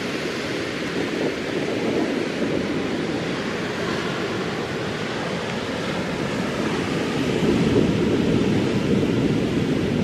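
Surf breaking on a sandy beach, a steady rushing wash of waves, with wind buffeting the microphone.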